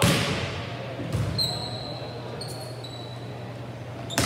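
Volleyball being struck hard in a gym, a sharp smack that rings in the hall, with a second hit about a second later. High squeaks of sneakers on the hardwood court follow, and another loud hit comes right at the end.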